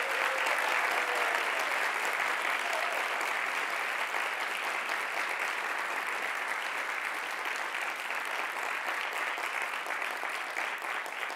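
Large audience applauding, a dense steady clatter of many hands that eases off slightly toward the end.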